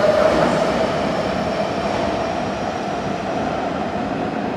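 A Sakura-dori Line subway train running away from the platform into the tunnel as it leaves out of service. Its rumble and a steady whine slowly fade.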